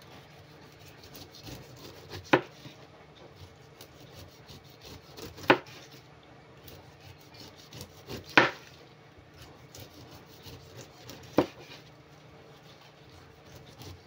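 A kitchen knife cutting the rind off a whole pineapple in downward strokes, each stroke ending in a sharp knock of the blade on a wooden cutting board: four knocks about three seconds apart, with quieter scraping of the blade through the rind between them.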